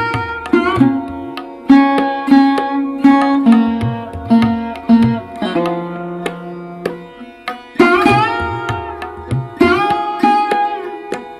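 Indian classical-style background music: sitar playing plucked notes with bending slides over a tabla rhythm.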